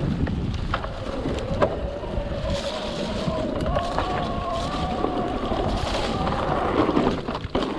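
Mountain bike riding down a trail: wind buffeting the microphone and tyres rumbling over the ground, with a few sharp knocks. A steady whine runs through the middle.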